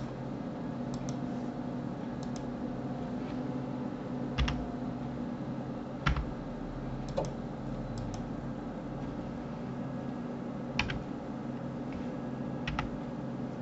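Computer keyboard keys and mouse buttons clicking now and then, single sharp clicks a second or more apart, over a steady low hum.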